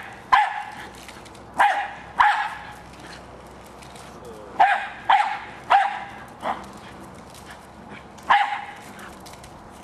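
Jack Russell terrier barking in short, sharp barks at a remote-controlled toy car, about eight barks in irregular bunches of one to three, with pauses of a second or two between bunches.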